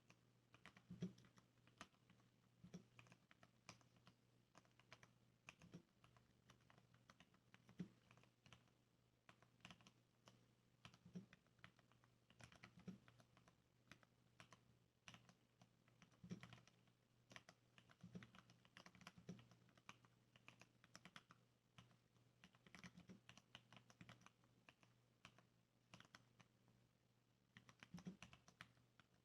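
Quiet, steady typing on a Varmilo mechanical keyboard with lubed Cherry MX Brown switches and sound-dampening inside: a continuous run of soft key clicks, with a heavier, deeper thock every second or two. A faint steady low hum sits underneath.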